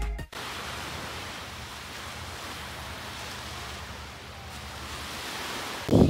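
Background music cuts off just after the start, leaving steady road noise with a low hum inside a moving car.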